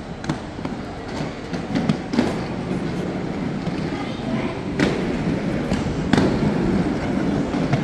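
Roller-rink noise: a steady rumble of skate wheels under background voices, broken by a few sharp knocks and thuds.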